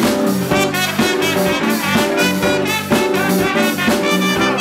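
Live jazz band playing: a trumpet plays the lead line into the microphone over electric keyboard, electric bass and drum kit, with a steady beat.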